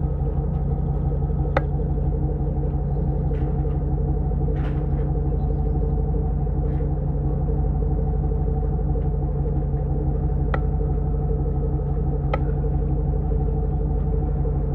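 1997 Jeep Grand Cherokee's 5.2 L V8 through a Magnaflow exhaust, running at steady revs with a low, even drone. A few sharp clicks stand out from it.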